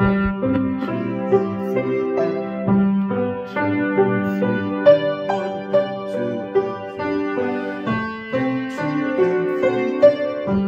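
Grand piano being played: a low note held and restruck under a melody of single notes moving about twice a second, each note left to ring.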